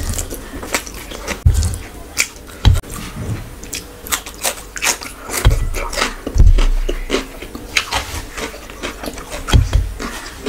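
Close-miked eating by hand: wet chewing and smacking of rice and curry, mixed with fingers squishing rice and rubbing across a steel plate, dotted with sharp clicks and a few dull thumps.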